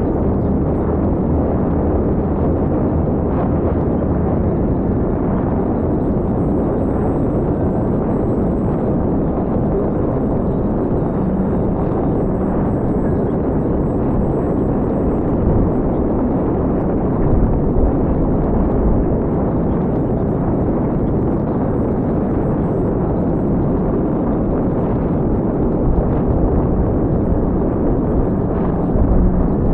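Steady, loud wind noise rushing and buffeting over the microphone, with a deep rumble and a few brief swells. No motor whine is heard.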